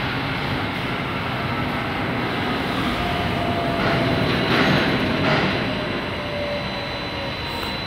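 Centrifugal oil dryer (de-oiling machine) running with a steady mechanical whir as its stainless-steel drum tilts forward. A faint high tone runs throughout, and a thin whine slides slowly downward partway through.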